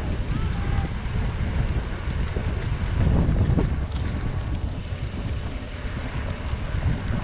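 Wind buffeting the microphone of a bike-mounted action camera as it rides along, a constant low rumble that rises and falls in gusts.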